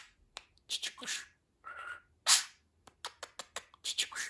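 Budgerigar chattering in short, raspy, high-pitched bursts of half-formed mimicked speech, the loudest about halfway through, followed by a quick run of clicks and chirps.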